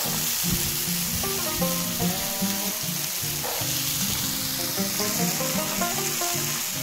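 Black chickpeas sizzling steadily in hot oil in a pan, with background music playing over it.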